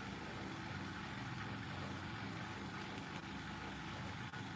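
A machine running with a steady low hum and an even drone, unchanged throughout.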